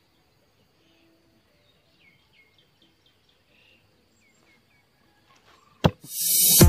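Faint birds chirping over quiet open-air ambience, a few short falling chirps. Near the end a sharp click and a loud rushing hiss lead straight into electronic music.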